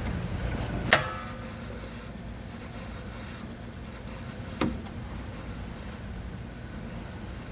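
Portable record player's changer and tone arm being handled as a 45 rpm single is set up: a sharp mechanical clack about a second in with a brief metallic ring, then a lighter click past the middle, over a steady low hum.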